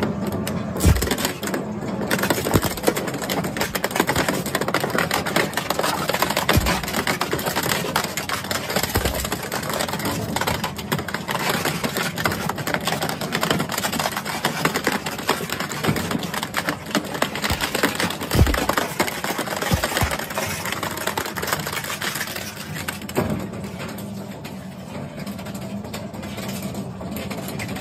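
An industrial shredder's toothed cutters crunch and snap through a plastic children's ride-on toy car. It is a dense crackle of breaking plastic over the machine's steady hum, with heavy thuds every few seconds. The crackling thins out near the end.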